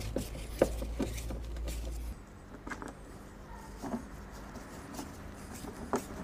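Quiet, irregular clicks and taps of a Phillips screwdriver and screws being fitted into a car's door card, with a low hum for the first two seconds.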